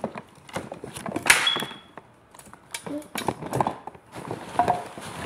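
Handling noise close to a phone's microphone: a run of knocks and clicks with a loud rubbing rustle about a second in that carries a brief high squeak. A few short bits of voice come in later.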